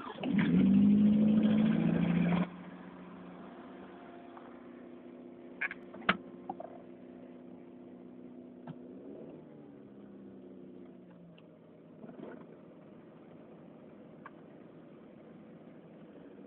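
Mazda MX-6's 2.0-litre four-cylinder engine catching on a cold start at −26 °C, running loud for about two and a half seconds, then dropping suddenly to a steady idle. The hydraulic valve lifters clatter, not yet pumped up with oil in the extreme cold.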